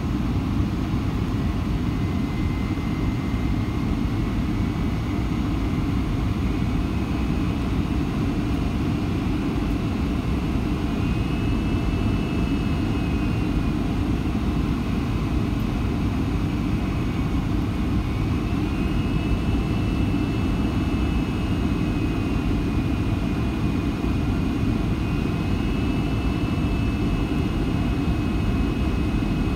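Cabin noise inside a Boeing 757-200 on approach: a steady low rush of airflow and its Pratt & Whitney PW2000 engines, with a faint high whine that steps up and down in pitch several times.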